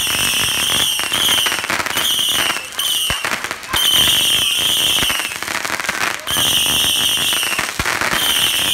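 Whistling fireworks going off on the ground, shooting off a series of shrill whistles, about eight in all, most under a second and one over a second long, mixed with sharp pops and crackling.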